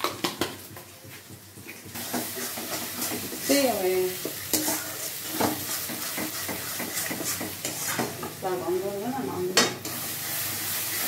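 Spice paste frying in oil in a steel kadai, a metal spatula stirring and scraping against the pan. The sizzle picks up about two seconds in, with repeated scrapes of the spatula. The masala is being fried down until the oil separates.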